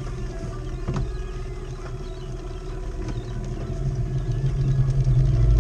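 Small outboard motor running steadily at trolling speed, getting louder over the last second or two.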